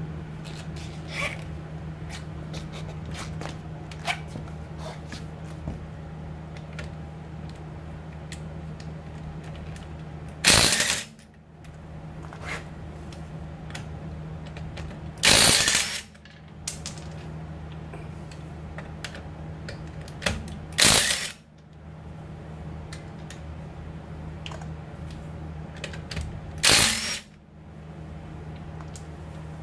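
Ryobi cordless impact wrench hammering in four short bursts, each under a second and about five seconds apart, loosening the wheel bolts. Between the bursts there is a steady low hum and small clicks as the socket and bolts are handled.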